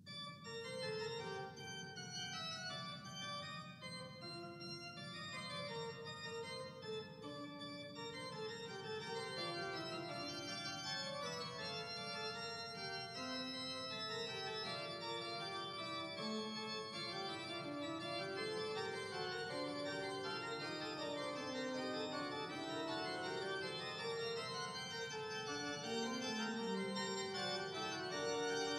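Organ music: slow, held chords with notes changing every second or so, the sound filling out at the start and then running on steadily.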